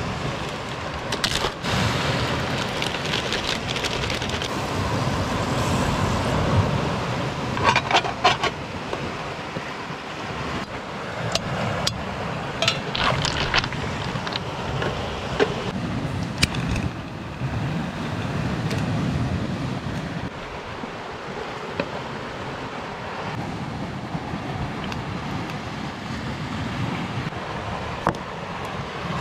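Sea surf washing against a rocky shore in slow swells, with a few sharp clicks and knocks now and then.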